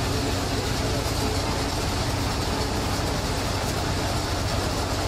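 Steady din of fish-processing machinery and conveyor belts running, with a constant low hum.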